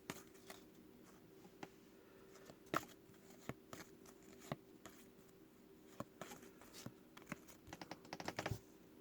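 Faint scattered clicks and taps of trading cards being handled and flipped through, with a quick run of clicks near the end.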